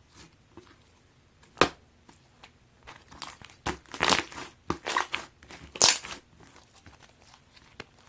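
Pearl slime being squished and pressed by hand, giving sharp crackling pops: one about a second and a half in, then a cluster of louder ones from about three and a half to six seconds in.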